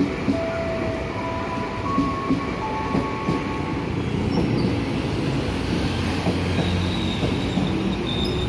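Electric commuter trains running alongside a station platform: steady wheel and motor rumble with clacks over the rail joints, a squeal from the wheels, and steady whining tones that step from one pitch to another.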